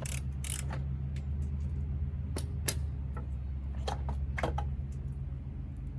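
A few scattered sharp metallic clicks and clinks of hand tools on the upper control arm mounting bolts, over a steady low hum.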